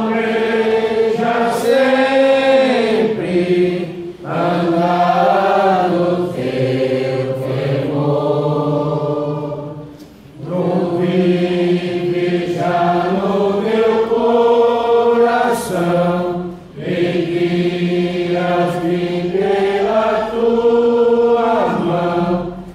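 Slow hymn singing in long, drawn-out phrases of several seconds each, with brief pauses between them.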